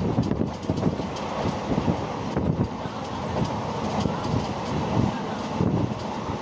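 Train running along the track: a steady rumble of wheels on rail with irregular clatter.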